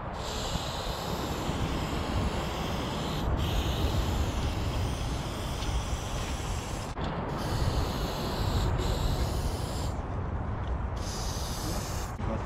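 Aerosol spray paint can hissing as black paint is sprayed on in long passes of about three seconds each. It breaks off briefly about three and seven seconds in and for about a second near the end, over a low rumble underneath.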